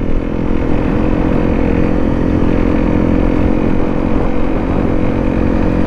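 Honda CRF250 Rally's single-cylinder engine running at a steady speed on a trail ride, its pitch holding level with no revving.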